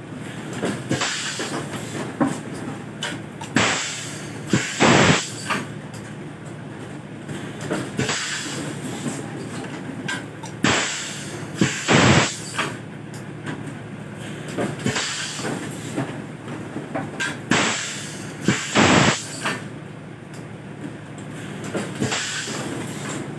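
PET bottle blow moulding machine cycling: pairs of loud bursts of compressed air, about every seven seconds, with clicks of the mould and a steady hum from the machine under them.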